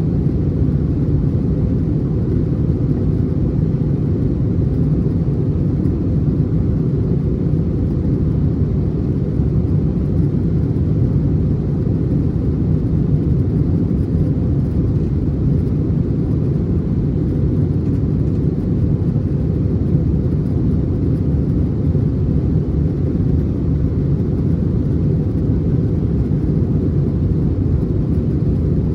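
Airbus A321 passenger cabin in flight: steady low rumble of jet engine and airflow noise from a seat behind the wing, unchanging throughout.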